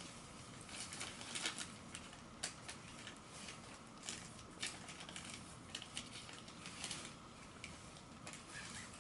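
Paper crinkling and rustling in irregular little crackles as a small wrapped package is unwrapped by hand.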